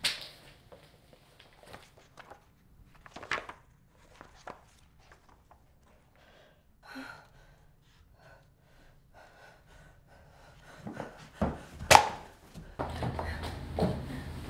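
Paper pages of a notebook being turned and handled, with soft rustles and light clicks. About twelve seconds in there is a single loud thunk, followed by a couple of seconds of rustling movement.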